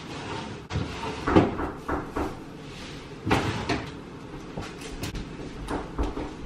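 Rummaging in an open refrigerator: a series of knocks and clatters, one about every second, as containers and jars are shifted about on its shelves.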